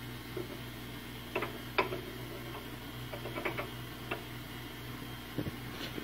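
Scattered light clicks and knocks as a cylindrical sleeve is handled and pushed onto the metal spindle end of a homemade cutter grinder, over a steady low hum.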